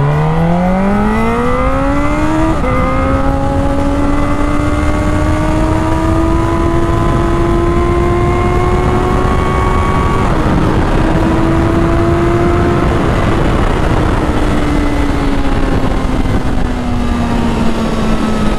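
Honda CB1000R inline-four engine accelerating through the gears: the pitch climbs steeply, drops at an upshift about three seconds in, climbs slowly, dips slightly about ten seconds in, then falls gently over the last few seconds as the throttle eases. Wind and road noise run underneath.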